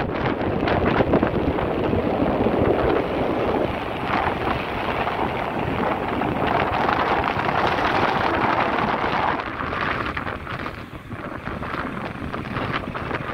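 Wind rushing and buffeting over the microphone of a camera on a moving motorcycle, with the bike's road and engine noise underneath. It eases somewhat about ten seconds in.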